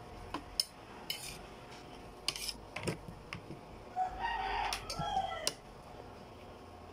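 A rooster crows once, starting about four seconds in and lasting about a second and a half. Around it, a metal spoon clinks and scrapes against a plate in short, scattered knocks.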